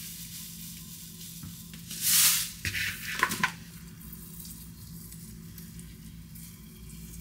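Breakfast being made at a kitchen counter: a short hissing pour about two seconds in, a few light clicks, then milk poured from a plastic bottle into a ceramic bowl of rolled oats and chia seeds, streaming quietly onto them.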